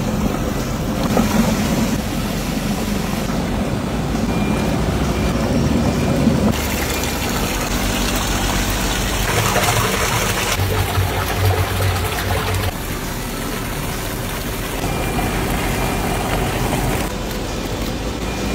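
Steady machinery hum and churning liquid from a stainless-steel cooking kettle with an electric mixer. The sound changes abruptly several times.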